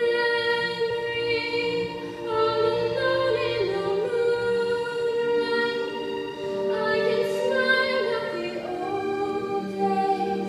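A solo female voice singing a slow ballad, holding long notes with a slight vibrato, the melody stepping up to a higher note near the end.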